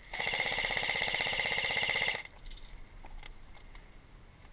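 Airsoft electric gun firing one full-auto burst of about two seconds: a rapid, even stream of shots over the whine of its gearbox, cutting off suddenly.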